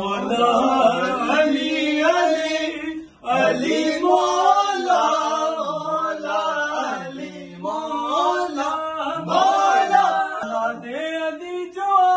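Manqabat, a devotional song praising Ali, chanted by a male singer in a slow, melismatic line, with a brief break for breath about three seconds in.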